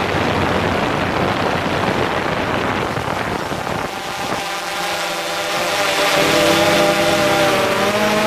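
DJI Phantom 4 quadcopter in flight: a rush of wind noise on the microphone, then, about four seconds in, the steady whine of its propellers comes through as several tones at once, shifting in pitch near the end.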